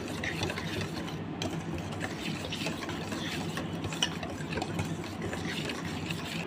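Wire balloon whisk beating a thick mayonnaise sauce in a stainless steel bowl: a fast, continuous clatter of the wires scraping and ticking against the metal, with a steady low hum underneath.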